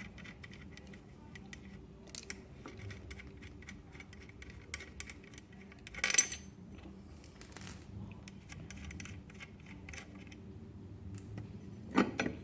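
Light metallic clicks and clinks of sprocket nuts, socket and sprocket being handled on a motorcycle rear wheel hub, with a sharper metal clatter about six seconds in.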